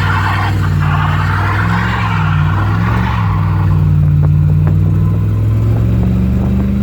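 1967 Oldsmobile Cutlass engine held at high throttle during a burnout, with rough tyre noise over the first half that dies away as the car pulls off.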